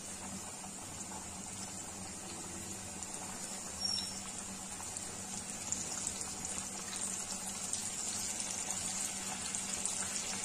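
Flour-coated chicken wings deep-frying in hot oil in a wok: a steady bubbling sizzle that grows a little louder over the last few seconds, with a short click about four seconds in.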